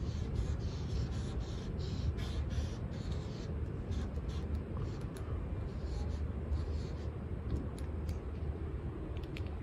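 Paint marker scratching on the painted steel side of a freight car: a quick run of writing strokes over the first few seconds, then a few short separate ticks. A steady low rumble sits underneath.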